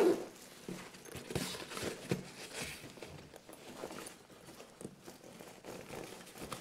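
Zipper on a fabric bike trunk bag being worked, with short rasping pulls and the nylon bag rustling and knocking as it is handled.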